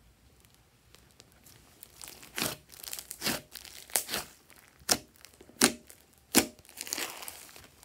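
Hands squeezing and pressing into thick slime, making a string of sharp sticky pops and crackles. The pops start about two seconds in, and there are about six strong ones.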